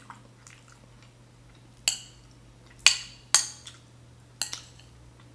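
Metal spoon clinking against a ceramic bowl, four sharp ringing clinks in the second half, the loudest about three seconds in.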